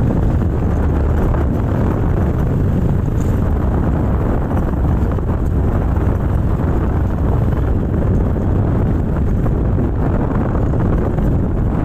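Steady wind buffeting the microphone on a moving vehicle, mixed with the vehicle's running and road noise; the rumble is heavy in the low end and unbroken throughout.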